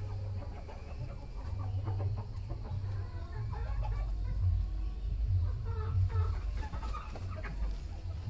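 Chickens clucking in short, scattered calls over a steady low rumble.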